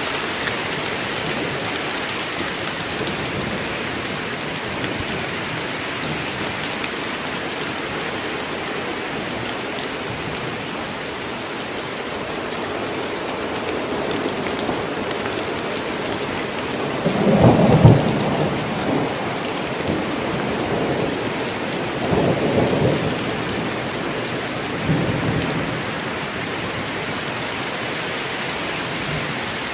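Steady heavy rain falling on forest foliage, with a rumble of thunder a little past halfway and two weaker rumbles following a few seconds apart.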